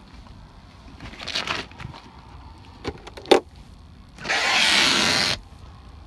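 Opening a portable compressor fridge freezer in its padded insulated bag: a soft rustle, two sharp clicks a few tenths of a second apart as the lid latches are released, then a loud rustle lasting about a second as the bagged lid is lifted.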